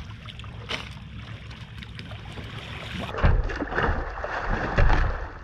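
Wind and water at a boat's side, then from about three seconds in a hooked mahi-mahi splashing and thrashing at the surface as it is gaffed beside the boat.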